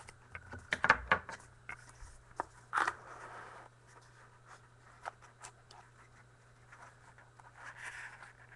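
Trading cards being handled: scattered sharp taps and short scraping rustles, busiest about a second in and again near three seconds, over a faint steady low hum.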